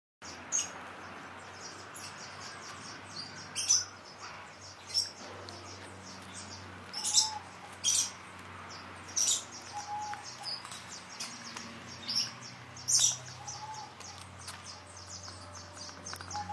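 Small birds chirping: short, sharp, high chirps every second or so, with a lower short call repeated every few seconds, over a steady low hum.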